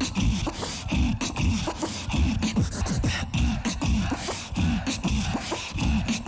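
Live competitive beatboxing through a microphone: a driving beat of bass kicks under bending, pitched bass sounds, with sharp snare and hi-hat-like clicks throughout.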